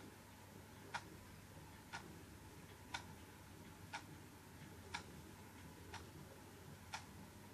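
A clock ticking faintly, one tick about every second, over a low steady hum.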